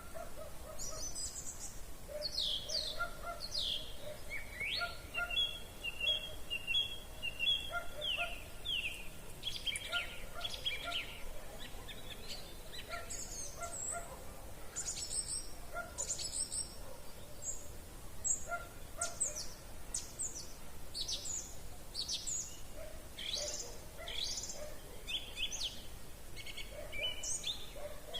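Evening spring bird chorus: several songbirds singing at once, with quick high chirps, trills and whistled phrases, over a steady faint background hiss. Underneath, a lower call repeats regularly.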